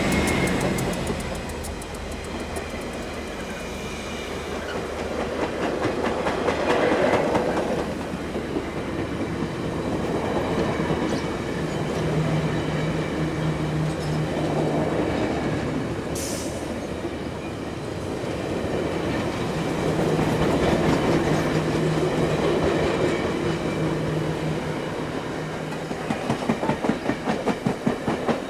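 Rocky Mountaineer passenger coaches rolling past on steel wheels: a steady rumble that swells and eases as the cars go by, with quick rhythmic clicking of wheels over rail joints near the end.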